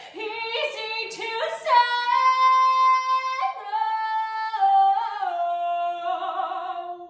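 A woman singing solo and unaccompanied. A few quick notes lead to a long high held note, and the line then steps down to a final held note with vibrato that ends the song.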